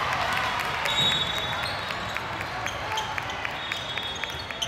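A basketball bouncing on a gym court during play, a run of quick knocks about three or four a second, over the general noise of the gym.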